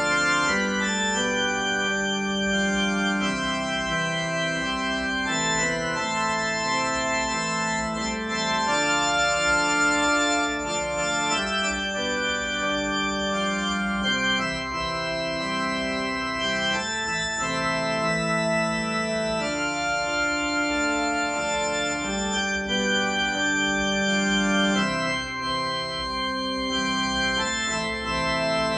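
Kurzweil digital keyboard on an organ voice, playing a slow Catholic hymn tune in long held chords that change every second or two.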